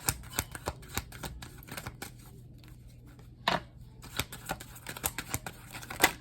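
A deck of tarot cards being shuffled and handled: quick, crisp card clicks, a lull about two seconds in, a short rustle, then more clicks ending in a sharp snap of the cards near the end.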